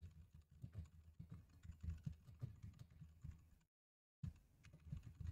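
Faint computer keyboard typing: a quick run of key clicks as a command is typed, broken by a half-second dropout to dead silence about three and a half seconds in.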